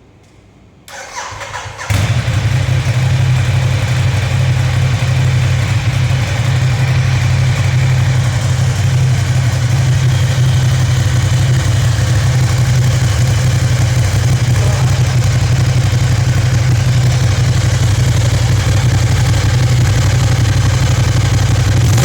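Ducati Diavel Carbon's L-twin engine on its stock exhaust being started: the starter cranks for about a second, the engine catches about two seconds in, and it settles into a steady, loud idle.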